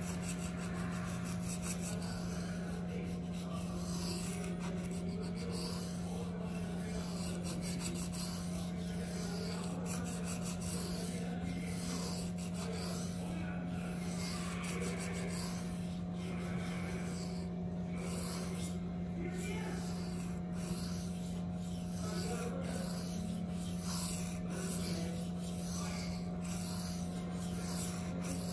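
Steel knife blade being stroked back and forth across a coarse resin-bonded Venev sharpening stone (F240/F400 grit), a regular scraping of roughly one to two strokes a second, over a steady low hum.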